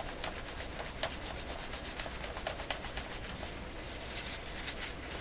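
A cloth wetted with WD-40 scrubbing dried grease off a bare metal radio part, in quick repeated back-and-forth rubbing strokes.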